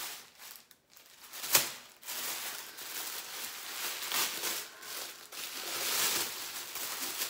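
Thin white tissue paper rustling and crinkling as it is pulled open by hand, in uneven, continuous crackles. A single sharp tap comes about one and a half seconds in and is the loudest sound.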